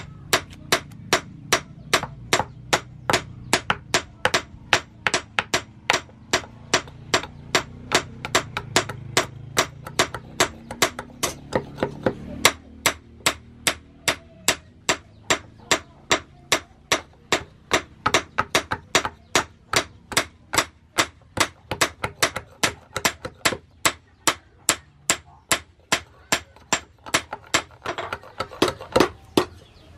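A steel knife blade chopping into a wooden block in quick, even strokes, about three a second, each a sharp strike.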